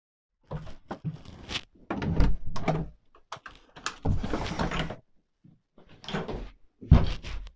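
An interior door being opened in a small room, amid a string of irregular thuds, knocks and rustling movements.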